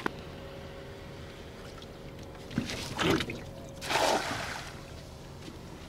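A cast net is thrown from a small inflatable boat: a short rush of noise, then about four seconds in the splash of the weighted net landing on the water, the loudest sound here.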